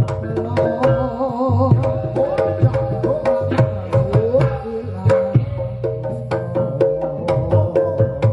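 Reog Ponorogo ensemble music: hand-drum (kendang) strokes in a quick, busy rhythm under a held, wavering reed-pipe melody, with gong tones.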